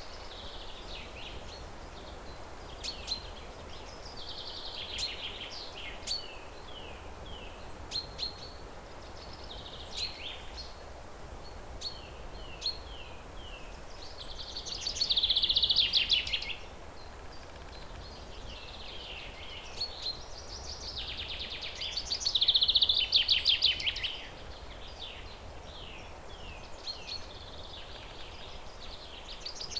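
Songbirds singing in the wild: repeated phrases of short falling whistled notes, broken twice by louder rapid trills, about halfway through and again past two-thirds, over a steady background hiss.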